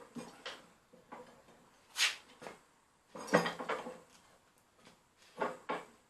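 Irregular metal-on-metal clanks and knocks from steel leg-vise parts being worked on, with a quick cluster of clanks about three seconds in and two more strikes near the end.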